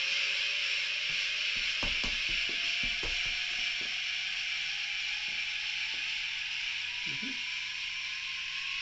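TARDIS dematerialisation sound effect played from a homemade sound and light controller's speaker: a steady mechanical hiss with a thin tone slowly rising in pitch beneath it, and a few soft knocks.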